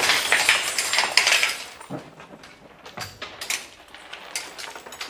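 Clattering and knocking of a steel-tube truck camper frame and its wooden floor panels being handled. Dense clatter for the first couple of seconds gives way to a few separate knocks.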